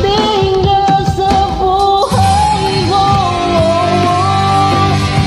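A Tagalog love song: a voice holds long, gently gliding notes over the backing track, which fills out with steady low bass notes about two seconds in.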